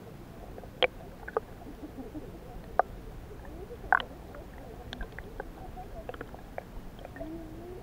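Underwater sound picked up by a submerged camera in shallow sea: a steady muffled rumble with a scatter of sharp clicks and knocks, the loudest about a second in and again around four seconds in.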